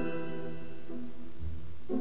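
Instrumental background music: a held chord, with a low bass note coming in partway through and a new chord starting near the end.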